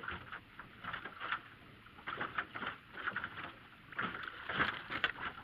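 Water slapping and splashing irregularly against the hull of a small aluminum fishing boat, a little louder near the end.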